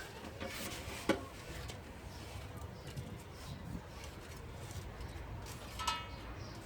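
Faint rubbing and small clicks of nylon fishing line being threaded by hand through a pleated fly screen, with one sharp click about a second in and a brief high squeak near the end.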